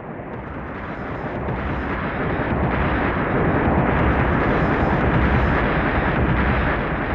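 A deep, noisy drone with no clear pitch from a Eurorack modular synthesizer built around the Make Noise Strega and Spectraphon. It swells up over the first three seconds or so and then holds steady.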